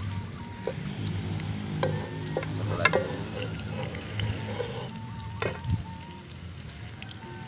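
Battered papaya fritters sizzling in hot oil in a wok as a machete blade turns them, scraping and knocking against the pan a few times, loudest about three seconds in.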